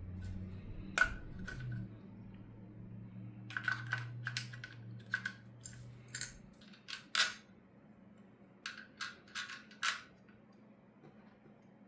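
Light metallic clicks and taps from small screws and tools being handled on a holster hanger while its mounting screws are tightened. The clicks come irregularly, about fifteen in all, the loudest about seven seconds in.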